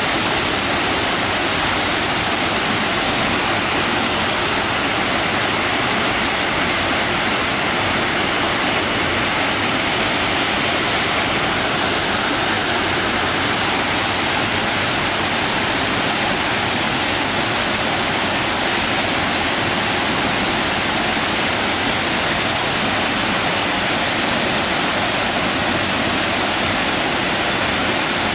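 Small waterfall rushing steadily over rocks, a loud even wash of water noise.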